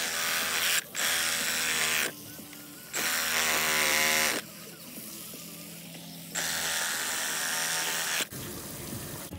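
Milwaukee FUEL brushless one-handed reciprocating saw cutting through a buried plastic pipe, its motor buzzing with the blade rasping, in four runs of one to two seconds with short pauses between.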